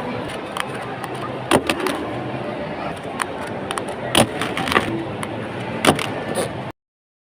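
Murmur of a crowded competition hall with a scatter of sharp clicks and taps. The sound cuts off abruptly near the end.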